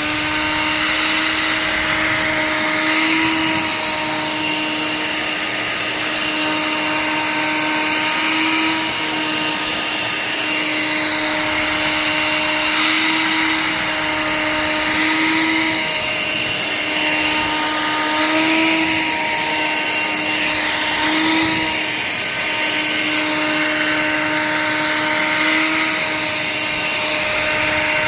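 Vacuum cleaner running steadily while grooming a cat's fur: a constant motor hum over rushing air, its pitch rising briefly every few seconds.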